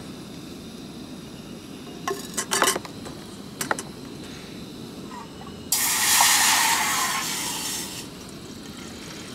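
A few light metal clinks from handling stainless steel camp cookware, then a sudden loud hiss about halfway through that fades away over about two seconds.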